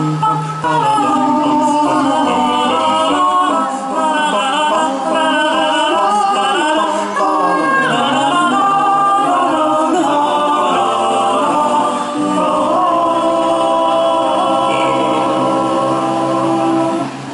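Male a cappella vocal ensemble singing close harmony through microphones and a PA, with no instruments. The voices move through shifting chords, then hold one long final chord that cuts off near the end.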